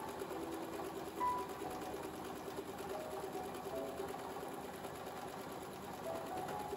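Brother LS-2125 electric sewing machine running at a steady speed, the needle stitching rapidly through fabric, until it cuts off suddenly at the very end. The machine has just been repaired and is being test-sewn.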